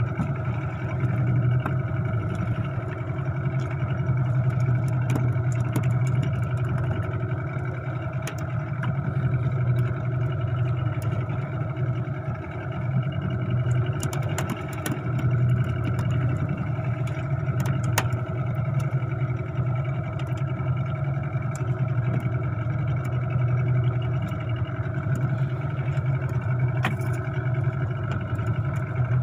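Boat engine running at a steady speed, a constant drone with a few faint clicks over it.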